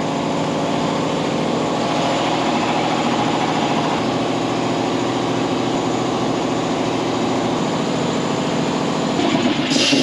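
Air compressor running steadily, with a continuous motor drone.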